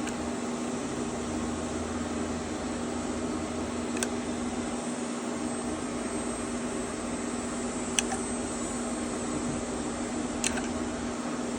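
Steady mechanical hum of a fan in a small room, with three small sharp clicks spread through it, a few seconds apart, from small metal parts of a recoil starter being handled as its springs are taken out.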